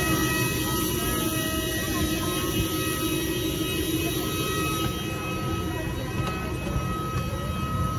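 Parked Airbus A320-214 at the stand, heard from its door: a steady rushing roar with a thin steady high whine over it.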